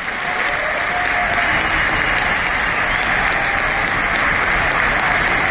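Arena crowd applauding, swelling up in the first second and then holding steady.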